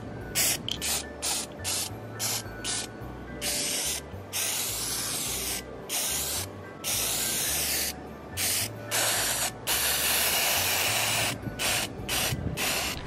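Aerosol can of gold acrylic enamel spray paint being sprayed in bursts: a run of short hisses with gaps between them, then several longer sprays, the longest about a second and a half near the end.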